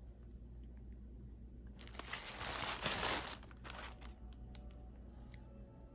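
Packaging being opened by hand, crinkling and tearing for about two seconds in the middle, followed by a few light clicks.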